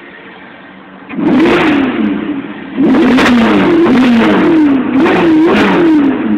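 Ferrari California's V8 engine revved from idle: one loud rev about a second in, then a quick run of about four blips, each rising and falling in pitch, before settling back toward idle near the end.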